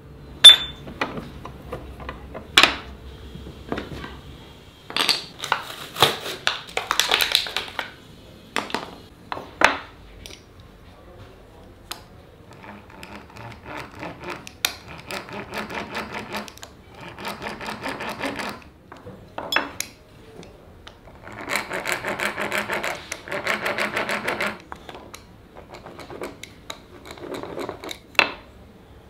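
Hand tools being worked at a workbench: several sharp knocks and clinks of tools and parts, then a series of rasping strokes, each a second or two long.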